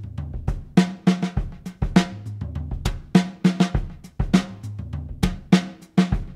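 Sampled vintage acoustic drum kit from the Abbey Road Vintage Drummer Kontakt instrument playing a groove of bass drum and snare hits, with a steady beat of about two to three hits a second.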